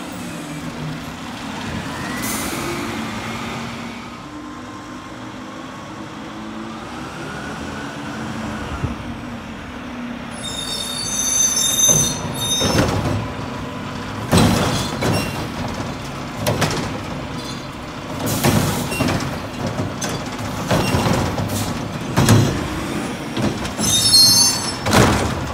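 Mack LR garbage truck with a Curotto Can arm running, its diesel and hydraulics going steadily with some rising and falling whine early on. High-pitched brake squeals come about eleven seconds in and again near the end. Through the second half there is a run of loud metallic clanks and bangs from the truck's arm and can.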